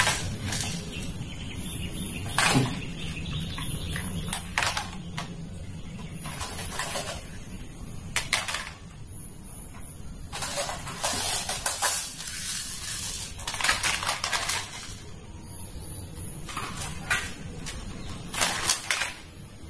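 Plastic toy guns being handled and laid onto a pile of other toy guns: irregular hollow knocks and clatter as they are set down, with scraping and rustling in between.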